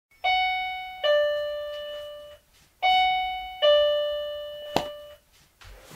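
Video door intercom chime ringing a falling two-note ding-dong twice, each note fading slowly, announcing a visitor at the door. A single sharp click near the end.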